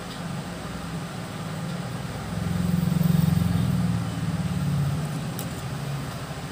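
A low engine rumble that swells about two and a half seconds in and fades again by about five seconds, with a faint click near the end.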